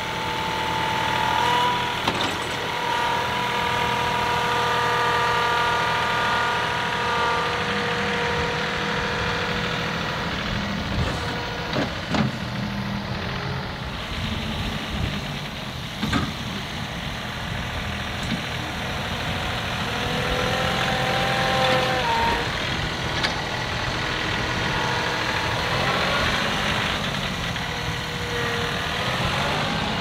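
John Deere 2038R compact tractor's three-cylinder diesel running under load as the front loader scrapes and spreads dirt, with a whining note that rises and falls and a few sharp knocks from the loader and bucket.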